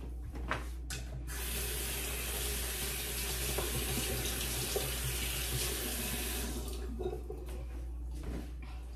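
Kitchen sink tap turned on about a second in and left running for roughly five seconds, then shut off, with a few light knocks around it.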